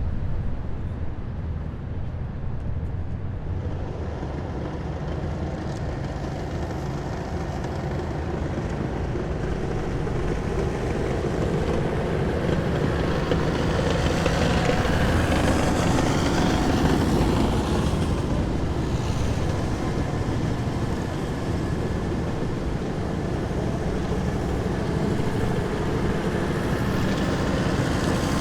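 Heavy military vehicles driving past in a column, a continuous engine rumble that grows louder about halfway through as a vehicle comes close, then eases slightly.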